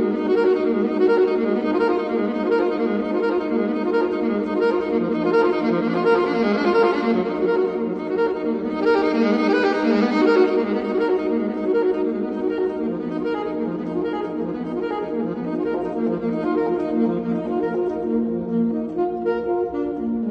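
Instrumental background music with long held notes from a wind instrument over a sustained chordal bed, fading down near the end.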